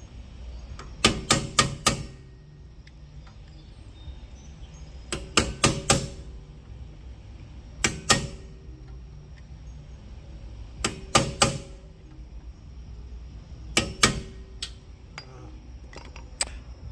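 Hammer blows on the wheel hub of a 2004 Honda Odyssey, striking hard metal with a short ringing note, in bursts of three or four blows every few seconds, beating the hub into place.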